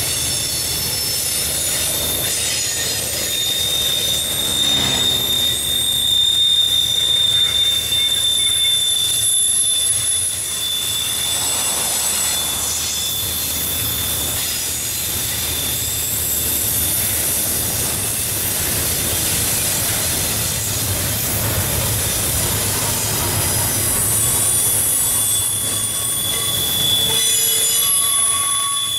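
Double-stack intermodal well cars of a freight train rolling past at a steady speed. The steel wheels squeal with several steady high-pitched tones over a continuous low rumble of the trucks on the rail.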